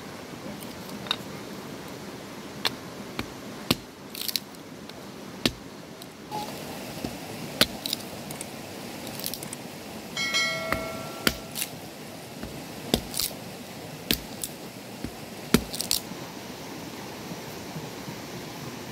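Wood being split into thin kindling sticks by hand, giving sharp, irregular knocks a second or so apart over a steady background hiss.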